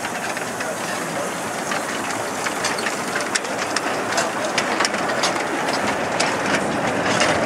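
15-inch gauge steam locomotive hauling wooden coaches past, running with a steady hiss of steam while the wheels click over the rail joints. The clicks grow more frequent and the sound slowly louder as the coaches roll by.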